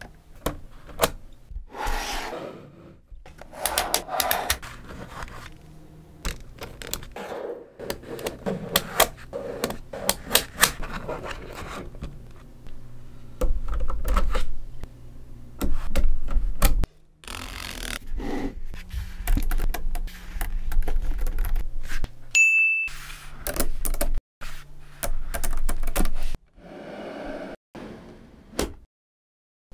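Small magnetic balls clicking and scraping as slabs of them are pressed, slid and snapped together by hand, with many sharp clicks and rattles.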